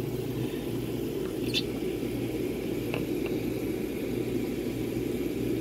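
A steady low mechanical hum, like a small motor or fan running, with a faint brief high-pitched sound about one and a half seconds in.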